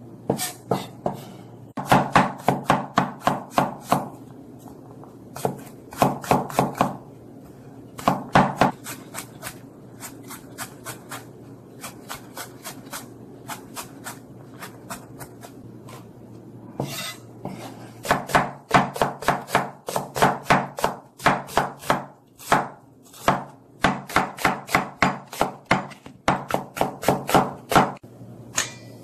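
Kitchen knife chopping garlic cloves on a wooden cutting board. The strokes come in quick runs of about five a second, with pauses between the runs.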